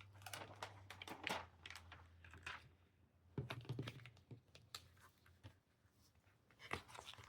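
Faint crinkling, rustling and small irregular taps of rhinestone template sheets being handled and laid onto a backing, over a low steady hum.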